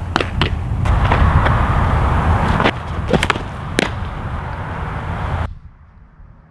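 Several sharp pops of softball pitches smacking into a catcher's mitt, over heavy wind rumble on the microphone. Near the end the wind cuts away suddenly to a much quieter background.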